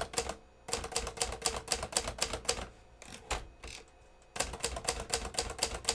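1965 Hermes 3000 manual portable typewriter being typed on, its keys and type bars striking in quick runs of clicks. The machine's all-metal body is lined with sound-dampening material. About halfway through the typing pauses for a second or so, with a single strike, then picks up again.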